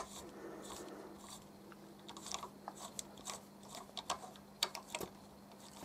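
M5 taper tap being turned by hand in a drilled hole in an aluminium tube, cutting threads with WD-40 as lubricant: faint, irregular crunching clicks that grow more frequent from about two seconds in. A faint steady hum lies underneath.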